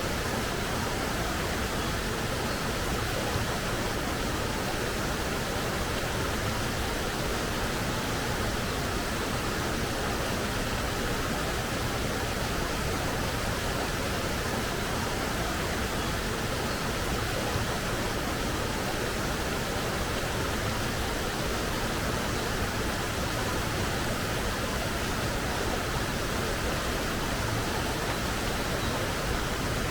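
Clear forest stream flowing over rocks: a steady, even rush of water.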